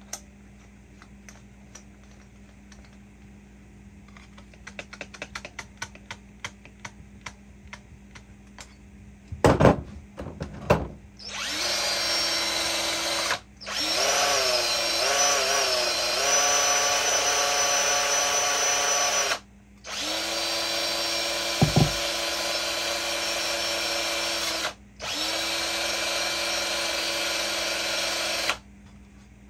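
Cordless drill spinning a wire brush against the end of a copper tube, cleaning the copper for soldering. The drill runs in four stretches of several seconds with short breaks, its pitch wavering in the second run. Before it come light clicking and a few loud knocks.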